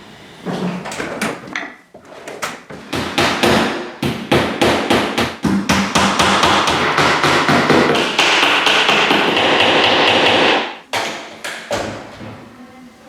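Hammering: a fast series of sharp knocks that thickens into a dense, continuous clatter about six seconds in, breaks off near eleven seconds, then goes on with a few more knocks.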